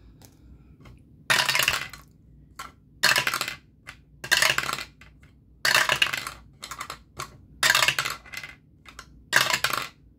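A ten-sided die dropped six times through a small dice tower, about every one and a half seconds, each time clattering down the ramps and rattling to a stop in the tray.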